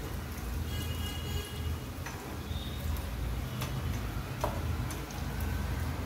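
A few sharp metal ticks as a steel fork and wire skimmer knock against the frying pan while fried chicken cheese rolls are lifted out of hot oil. Faint crackling of the oil and a steady low hum run underneath.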